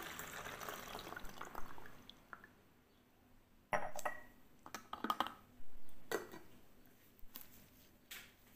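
Liquid trickling and dripping through a plastic funnel into a plastic bottle for the first couple of seconds, dwindling away. Then several sharp knocks and clatters of hard plastic as the funnel is handled and lifted out of the bottle neck.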